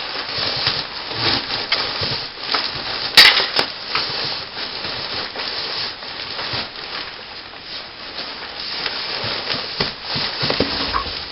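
Air-conditioning ducting being pulled down out of a ceiling hole, crackling and rustling, with one sharp knock about three seconds in.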